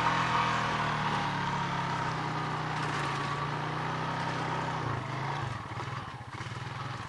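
Honda off-road vehicle's engine running steadily under held throttle, then the throttle is closed about five seconds in and the engine drops to a slower, uneven low-speed running. Wind rushes over the helmet-mounted microphone.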